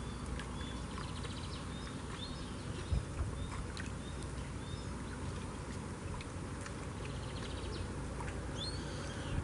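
Small birds chirping, with a couple of short trills, over a steady low rumble. There is a single soft thump about three seconds in.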